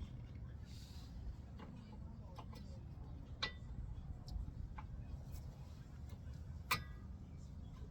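Scattered sharp metallic clicks and taps, about seven in all, two of them louder with a brief ring. This is brake hardware being handled: pads and greased clips seated in the caliper bracket.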